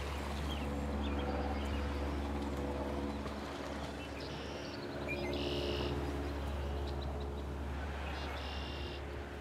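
Songbirds calling in short, rapid high trills, several times, over a steady low hum.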